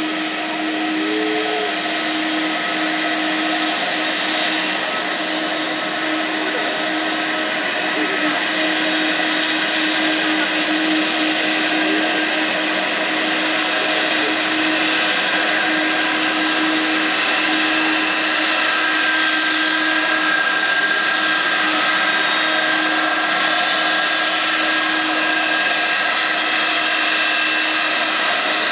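Jet engines of a taxiing Airbus A330 airliner at low taxi power: a steady loud rushing whine with several held tones, growing a little louder about eight seconds in.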